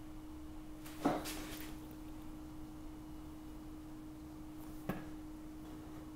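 Quiet kitchen with a steady low hum, broken by two short knocks: one about a second in with a brief scrape after it, and a sharper click near five seconds, from a serrated knife being worked through a cake layer resting on a wire cooling rack.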